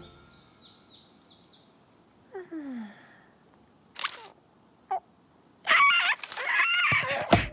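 Cartoon sound effects: a few faint high chirps, a falling whistle-like glide, two short clicks, then a loud, wavering vocal sound from the cartoon ostrich character about two seconds before the end, finishing in a short loud burst.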